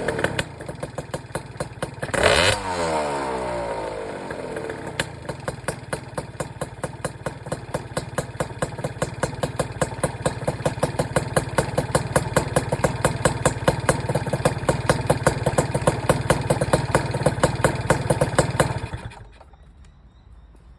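Malossi-kitted Gilera Runner 180 two-stroke single with a PM Tuning exhaust, blipped once about two seconds in, then idling with a regular beat of sharp pops, about four or five a second, growing slowly louder. The engine is switched off about nineteen seconds in.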